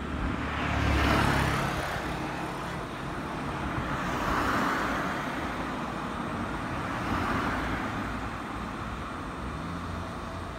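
Road traffic passing close by: three swells of tyre and engine noise over a low steady rumble, the loudest about a second in, the others around four and a half and seven and a half seconds in.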